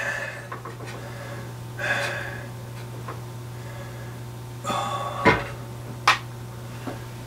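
Hands working a weighing scale: a soft rustle about two seconds in, then a knock about five seconds in and a sharp click a second later, over a steady low hum.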